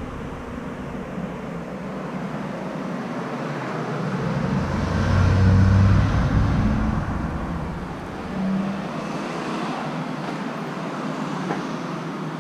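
Road traffic going by, with one motor vehicle passing close, its engine hum swelling up and dying away, loudest about six seconds in.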